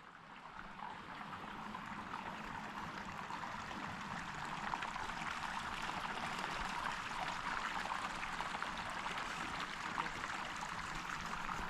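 Spring water trickling steadily out of a small crack in the rock, a light, even splashing flow that swells slightly in the first couple of seconds.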